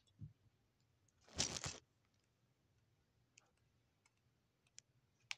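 Close handling noise: a low thump just after the start, a brief scraping rustle about a second and a half in, and a few scattered light clicks.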